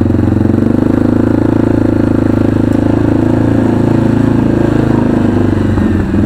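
Arctic Cat 500 ATV's single-cylinder four-stroke engine running steadily as the four-wheeler rolls slowly, with a brief dip about six seconds in.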